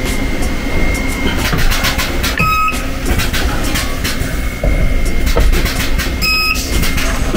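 Car-body resistance spot welder at work on a quarter-panel flange: a steady high whine from the machine, two short beeps about four seconds apart, and a low hum for about a second between them as a weld is made.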